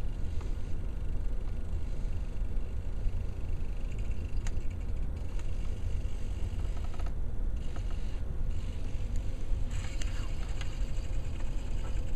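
Small robot's modified continuous-rotation hobby servos driving its wheels, whirring and pausing briefly a couple of times as it manoeuvres, with a few light clicks. A steady low rumble runs underneath.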